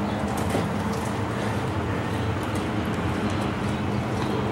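Steady low background rumble of road traffic, with no distinct events standing out.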